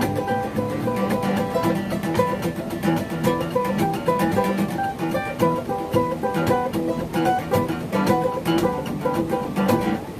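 Acoustic guitar playing a blues jam, a quick run of picked notes over chords with no pause.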